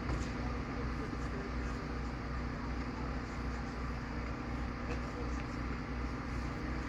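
Steady low mechanical hum with faint background voices.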